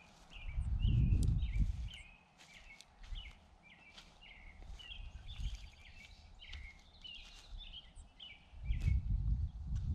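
Birds chirping outdoors, a quick run of short repeated notes, with a low rumble swelling up about a second in and again near the end.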